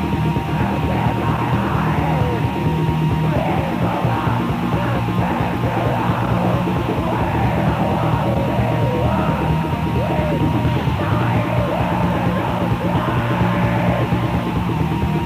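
Raw black metal played by a full band on a lo-fi 1996 rehearsal demo: distorted guitar and fast drumming with a harsh shouted vocal coming in about a second in. The recording sounds dull, with little treble.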